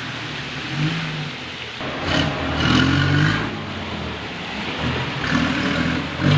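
JCB backhoe loader's diesel engine running and revving up in several surges, about a second in, around two to three seconds in, and again near the end.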